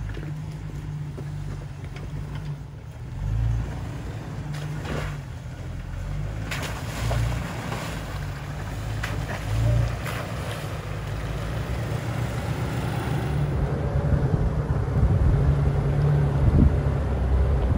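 Jeep Wrangler LJ's 4.0-litre inline-six running at low crawling revs as it picks its way over rocks and through a puddle, swelling in a few short blips of throttle, with a few knocks from the rocks. It grows louder toward the end, with wind on the microphone.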